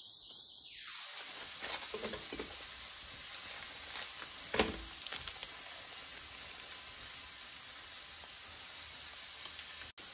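Steady sizzle of chicken cutlets frying in a pan, with faint plastic rustles and a short knock about four and a half seconds in as walnuts are shaken from a plastic pack onto a salad.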